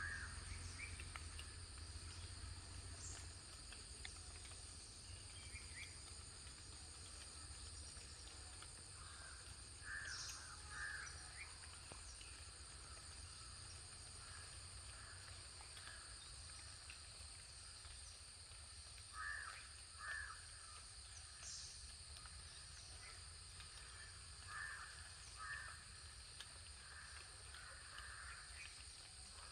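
Crows cawing now and then, mostly two caws about a second apart, over a steady high-pitched drone of insects.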